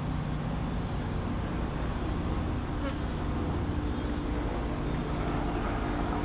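Helicopter flying over, a steady low drone.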